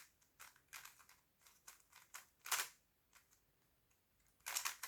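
Faint plastic clicks and clacks of a Rubik's cube's layers being turned by hand. The turns are scattered, with a sharper clack about two and a half seconds in and a quick run of clicks near the end.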